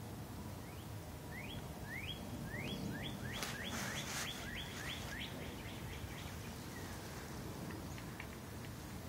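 Small birds chirping: a run of short upward-sliding chirps, quickening to about three a second in the middle before thinning out, over steady low background noise. A brief rushing noise comes in the middle.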